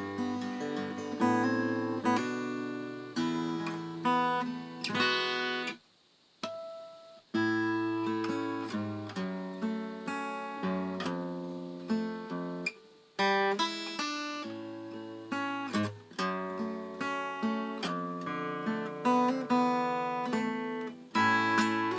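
Solo acoustic guitar playing chords, each one ringing and fading, with a pause of about a second and a half some six seconds in and a short break near thirteen seconds.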